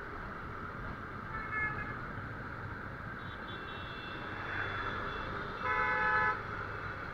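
Vehicle horns honking in city traffic over steady road and wind noise from a moving motorcycle. There is a short toot about a second and a half in, and a louder honk of under a second near the end.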